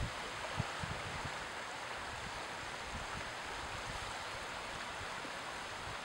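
Small waves lapping and washing over shallow water at the shoreline, a steady even wash. A few low wind thumps on the microphone in the first second.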